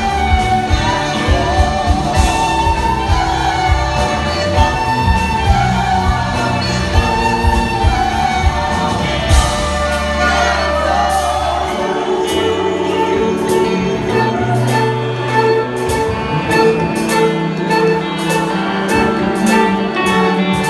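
Live band playing amplified music with several voices singing together, over drums, electric guitars, violin and keyboards. About twelve seconds in the drum beat drops out, leaving held chords and voices with a high percussion tick about twice a second.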